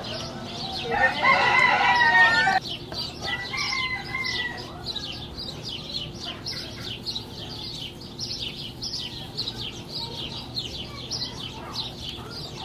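A rooster crows once, loud, starting about a second in and cutting off abruptly after about two seconds. Quick high chirping of small birds goes on underneath and after it.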